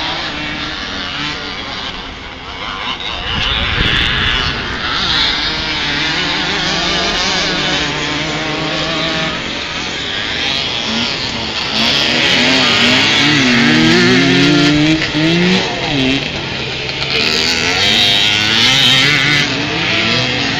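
Vintage motocross motorcycles racing past. Their engines rev up and down through the gears and the corner, and get louder about halfway through as the bikes come close.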